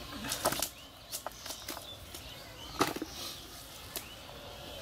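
A live fish flapping and slapping against the cast net and the dirt as it is worked free by hand. The slaps are irregular, with the loudest about three seconds in.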